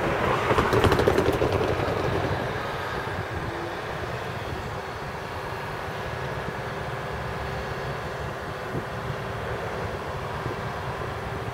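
Class 56 diesel locomotive running light at low speed, its Ruston-Paxman V16 diesel engine droning steadily with a held tone. A louder, rushing surge comes in the first two seconds.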